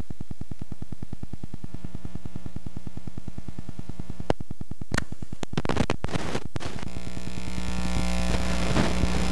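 Loud steady electrical hum and buzz on an old videotape soundtrack. Sharp clicks come about four and five seconds in, and it turns into a noisy crackle and hiss through the second half.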